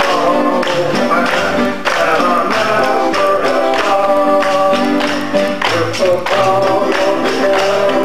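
A group of singers performing a gospel song with electric keyboard accompaniment and a steady rhythmic beat.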